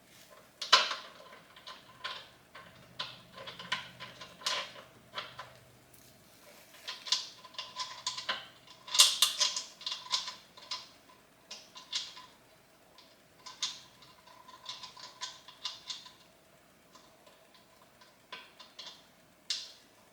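Irregular clicks, knocks and clinks of small metal parts and tools being handled while fitting legs and nuts, over a faint steady hum.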